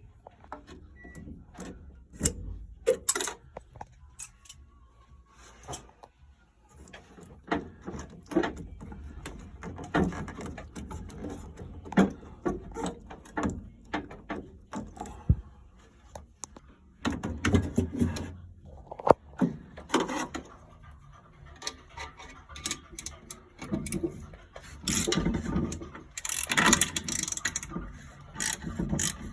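Irregular metallic clicks, knocks and scrapes of hand tools and parts being worked on a Worcester Greenstar boiler, with a denser run of clatter near the end.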